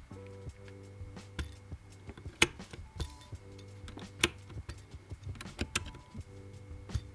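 Background music with held tones over a steady low bass, with scattered sharp clicks at irregular intervals, two of them much louder than the rest.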